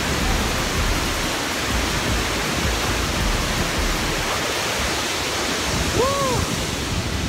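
Large waterfall's steady, dense rush of falling water. About six seconds in, a short rising-and-falling vocal "ooh" sounds over it.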